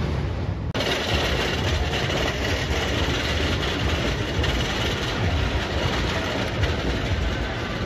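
Gold Striker wooden roller coaster train rumbling steadily along its wooden track.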